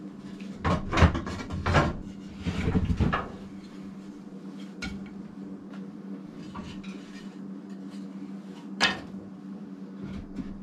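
Small pieces of scrap hardwood knocking and clattering as they are dropped into a steel stove firebox: a quick run of knocks in the first few seconds, then a single knock about five seconds in and a sharp one near the end, over a steady low hum.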